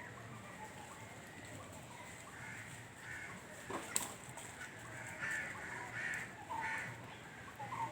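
Crows cawing several times in the second half, harsh short calls over a faint steady background, with a single sharp click about four seconds in.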